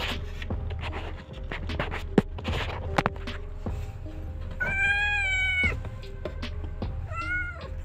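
A cat mewing twice: a call of about a second, then a shorter one near the end.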